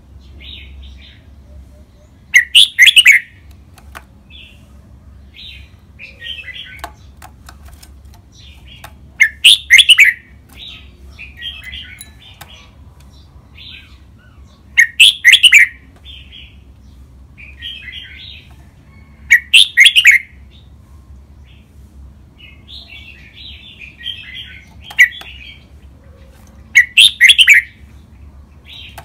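Red-whiskered bulbul singing: five loud, short song phrases a few seconds apart, with softer chirps and twitters between them.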